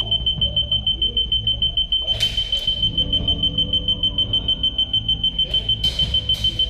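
Electronic airsoft capture-point box (BattleFlag-type flag) beeping rapidly with a high, even tone, several beeps a second, while its button is held down: the point is being captured. A few sharp snaps cut in at about two and six seconds in.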